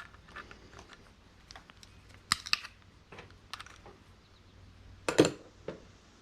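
Scattered light clicks and knocks of a salvaged washing-machine part being handled, with a sharp clatter about two seconds in and a louder knock about five seconds in.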